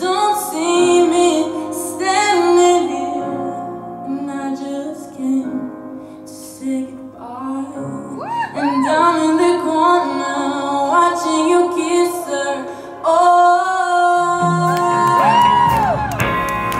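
A woman singing with a live band: drums, electric guitar and horns backing her.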